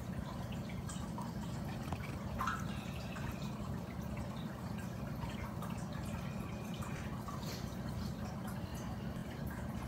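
Aquarium water dripping and trickling, with scattered small splashes, over a steady low hum.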